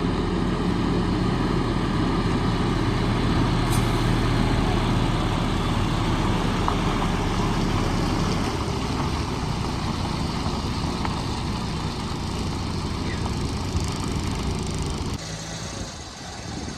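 A truck's engine running steadily with a low hum. The lowest part of the hum fades about halfway through, and the sound drops abruptly near the end.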